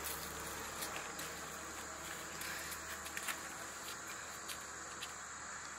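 Steady outdoor ambience: a constant high insect drone over hiss and a low hum, with scattered faint clicks.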